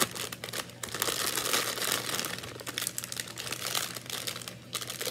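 Plastic candy bag crinkling and rustling irregularly as it is handled.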